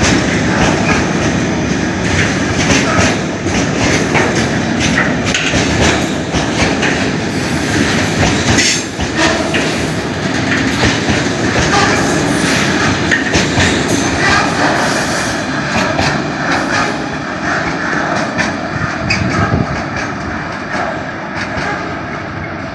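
A train rolling along the track, its wheels clicking over rail joints, with brief high-pitched wheel squeal in the middle; the sound gets quieter near the end.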